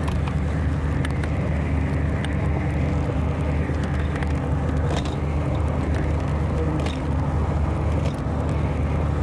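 A vehicle engine idling steadily as a low, unchanging drone, with a few scattered clicks and knocks over it.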